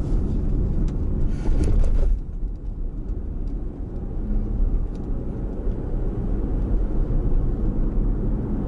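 Car driving on a city street, heard from inside the cabin: a steady low rumble of engine and tyres, a little louder for the first two seconds.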